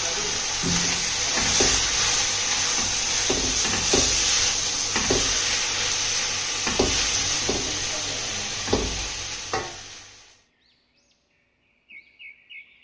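Chicken and vegetables sizzling in a stainless steel wok as a silicone spatula stirs them, with a knock or scrape of the spatula against the pan roughly once a second. The sizzle fades out about ten seconds in.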